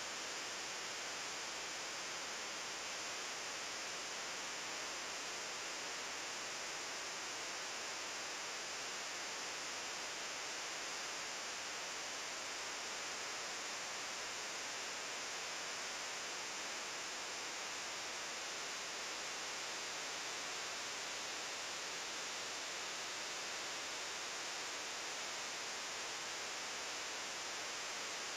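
Steady, even hiss of recording noise, with no other sound standing out.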